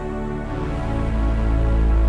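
Instrumental music: sustained tones over a deep low drone that swells louder through the passage.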